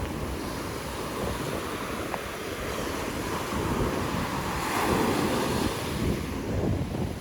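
Gulf surf washing onto the beach at high tide, swelling louder about two thirds of the way through, with wind buffeting the microphone.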